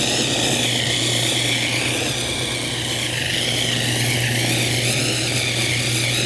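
Electric mixer motor running steadily at speed with a constant hum and a wavering whine, mixing pie dough of flour, butter, egg and brown sugar.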